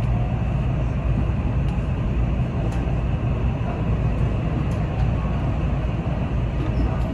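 A JR West 323 series electric train running, heard from inside the front car: a steady low rumble of wheels on rail, with a few faint clicks.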